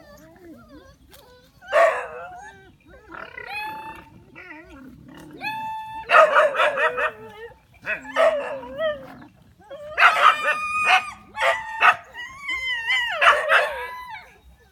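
Dogs barking and yelping in repeated bursts, some calls drawn out and wavering in pitch like short howls.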